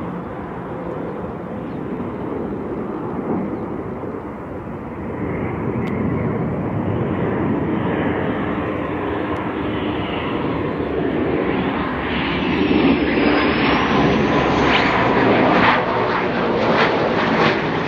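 F-15 fighter jet's twin turbofan engines on a low approach with the landing gear down, a jet roar that grows steadily louder as it closes in. A high whine dips and then climbs about twelve seconds in, and the sound turns harsher and more rasping near the end.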